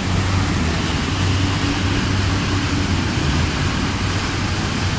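Steady roar of white-water rapids fed by water released from a dam, with a low engine drone from jet boats underneath.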